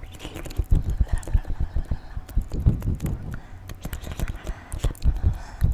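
Close-miked ASMR mouth sounds: a quick, irregular run of wet tongue clicks and lip smacks.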